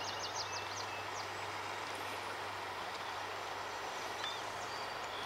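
Outdoor ambience: a steady, even background noise with a low hum under it, and a quick run of faint high chirps in the first second or so.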